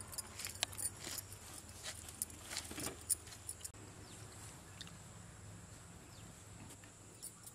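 Knife cutting through the crisp fried crust of whole mutton: a scatter of small clicks and crackles over the first three or four seconds, then only a faint steady hum.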